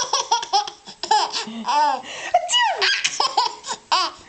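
A baby laughing in a run of short, high-pitched bursts, about three or four a second.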